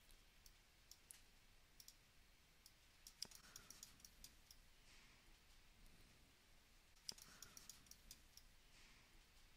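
Near silence with faint, scattered computer mouse clicks; two of them, about three and seven seconds in, are louder than the rest.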